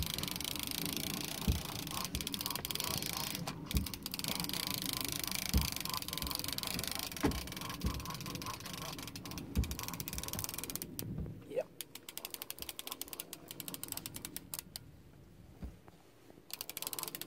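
Fishing reel being wound in, with a fish on the line, its ratchet clicking rapidly. For the first half the clicks sit under a steady rushing noise with a few dull knocks; for the second half the fast clicking stands out alone.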